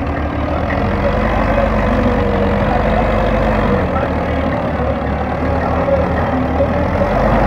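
Belarus MTZ tractor's four-cylinder diesel engine running steadily under load as the tractor pushes wet mud with its front blade.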